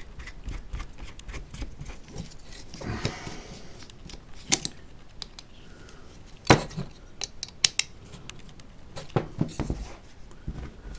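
Scattered light clicks and taps of a small hex screwdriver and tiny screws against carbon-fibre gimbal plates as the screws are driven in and tightened, with one sharper knock a little past the middle.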